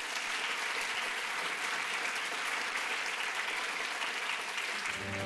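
Audience applauding steadily. Music comes in just before the end.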